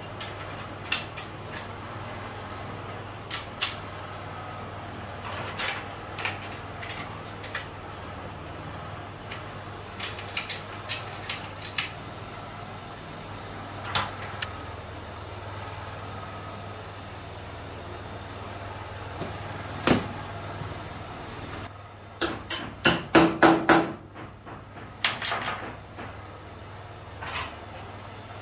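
Hand tools clinking and knocking on the steel frame of an industrial sewing-machine stand during assembly, with scattered single knocks and a quick run of about eight loud knocks about two-thirds of the way in. A steady low hum runs underneath.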